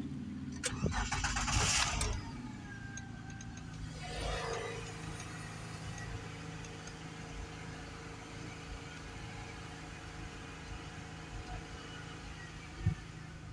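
Car engine being jump-started off another car's battery: it cranks and catches in the first two seconds, then settles into a steady idle. A brief noise about four seconds in and a single knock near the end.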